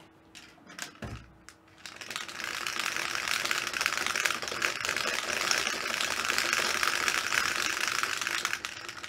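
Dice rattling inside a clear plastic dice dome as it is shaken: a few separate knocks, then a dense, rapid clatter from about two seconds in that stops shortly before the end.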